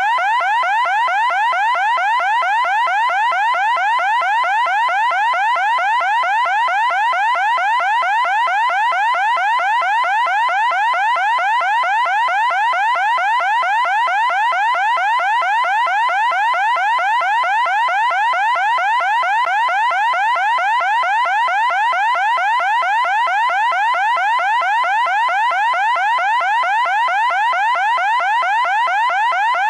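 Loud electronic siren sounding a fast, evenly repeating rising sweep, unbroken throughout.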